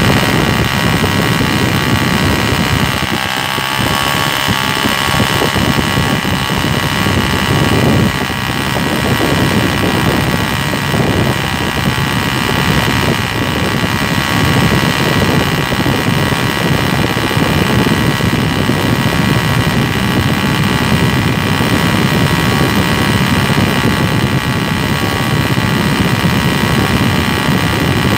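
Homemade single-cylinder model nitro engine running steadily at high speed: a loud, continuous, high-pitched buzzing drone.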